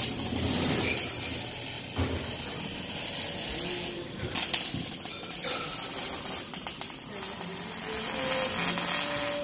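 Electric welding arc on steel tube crackling and hissing in runs of a few seconds, with a short break about four seconds in.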